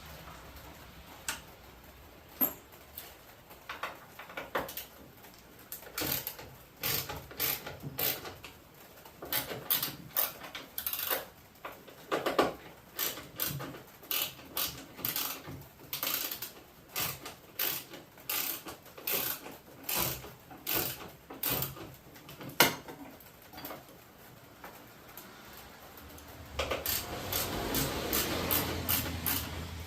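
Irregular metallic clicks and clinks of a hand tool and small Torx bolts being worked on a pickup's tailgate tie-down bracket. Near the end a louder rustling scrape joins in.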